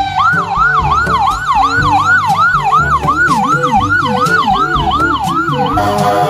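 Toy ambulance siren sound, an electronic wail that sweeps up and drops back in quick repeats, about three a second, changing to a steadier tone near the end.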